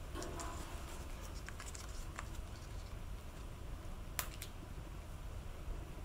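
Small clicks and faint crinkling of hands handling a small brass valve and a roll of thread-seal tape, with one sharper click about four seconds in, over a low steady hum.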